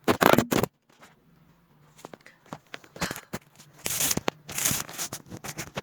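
Makeup items and the bag being handled close to the microphone: a loud rough scrape right at the start, then scattered clicks and bursts of rustling from about two seconds in.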